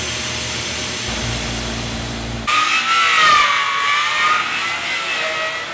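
A CNC cutting torch hissing steadily as it cuts steel plate. About halfway through it gives way abruptly to an angle grinder whining against steel, its pitch wavering as it bears on the metal.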